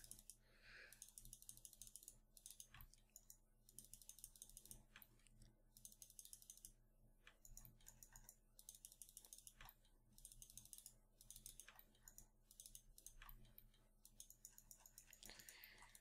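Faint runs of rapid clicks from computer controls at the desk, each run about a second long with short pauses between, over a faint steady electrical hum.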